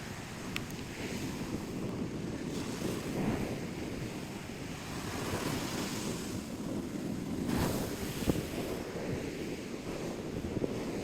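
Surf washing onto a beach, swelling and fading, with wind rumbling on the microphone. A brief sharp click about eight seconds in.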